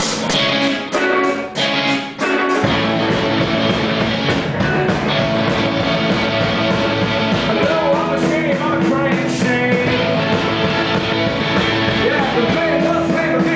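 Live rock band playing: electric guitars strike stop-start chords with short breaks, then the full band with bass comes in about two and a half seconds in. A man sings over it in the second half.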